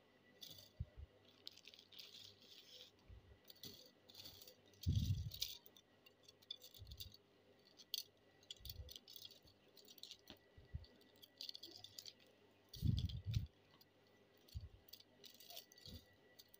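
Fishing floats being handled out of their plastic packaging: light rattling and clicking as they knock together, with rustling, and two louder dull knocks.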